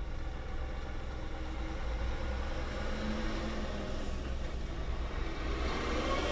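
Truck engine idling steadily in stopped traffic, a low hum heard from inside the cab. Near the end an engine tone rises in pitch as a vehicle speeds up.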